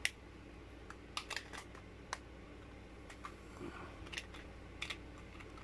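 Irregular small plastic clicks and taps, about ten of them, from a battery-powered LED puck light being handled as AAA batteries are seated in it and its battery cover is fitted back on.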